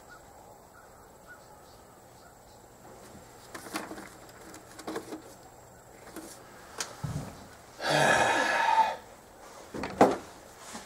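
Hand-work noises from taking apart a car's dash: a few scattered knocks and clicks, then a loud scraping noise lasting about a second, and one more knock.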